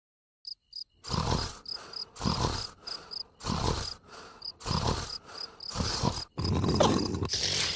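Cartoon snoring: a character snoring in loud, rhythmic snores about once a second, running into a longer, louder snore near the end, over high chirping ticks about three a second.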